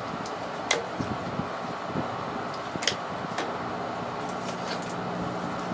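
A few light clicks of plastic paint bottles being picked up and set down on the bench, over a steady mechanical hum; a low steady drone joins about four seconds in.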